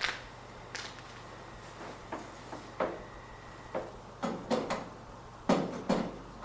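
About a dozen irregular knocks and clunks of objects being handled and set down, coming closer together and louder toward the end.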